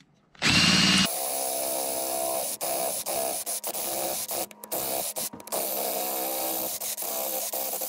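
Cordless drill with a 3/8-inch twist bit boring through the sheet-metal roof of a 2008 Toyota Tundra. A short burst about half a second in, then steady drilling from about a second in, with a few brief dips as the trigger is eased.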